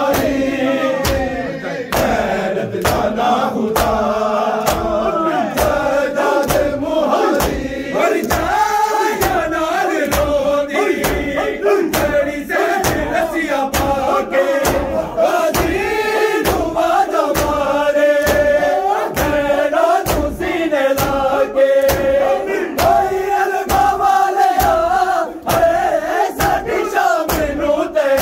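Men chanting a noha, a Shia mourning lament, in unison. The mourners beat their chests in time (matam), with sharp slaps about twice a second under the voices.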